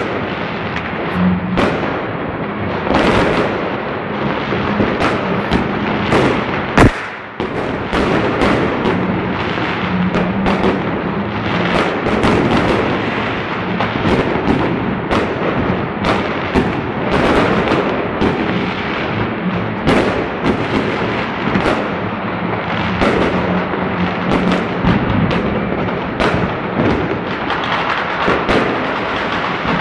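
Dense New Year's Eve fireworks: a continuous run of bursting aerial fireworks and crackling bangs. One much louder bang comes about seven seconds in.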